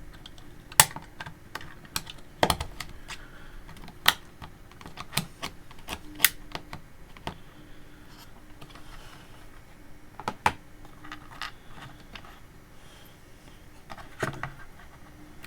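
Irregular sharp clicks and taps of pliers against the small parts and plastic housing of a soldering iron's wire-feed mechanism, as a part is worked back into place.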